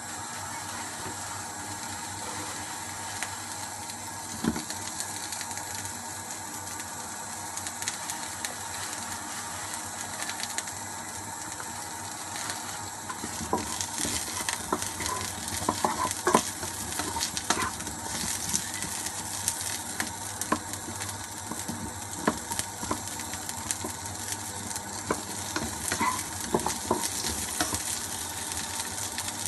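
Onion chunks sizzling in hot oil in a nonstick wok, stirred with a wooden spatula that knocks and scrapes against the pan. The knocks come more often from about halfway through.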